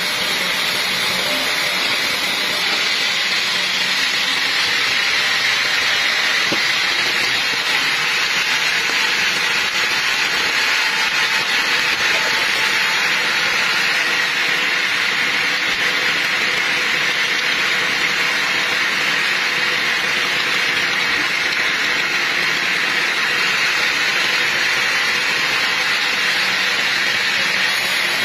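Sawmill machinery running steadily: a constant loud rushing hiss with faint, even hum tones underneath, without pauses or changes in pitch.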